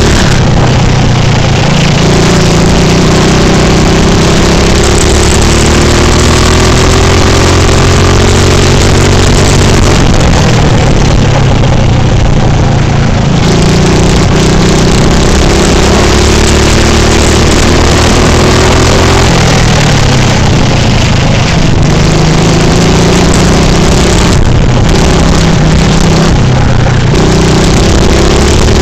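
Go-kart engine heard from on board at full throttle, loud, its pitch climbing along the straights and falling away about three times as the driver lifts off for corners, then climbing again.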